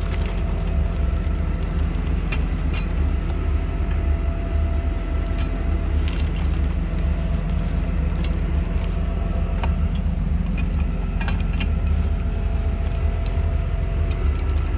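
A heavy machine's engine running steadily with a low hum, with scattered short metallic clicks and clinks over it.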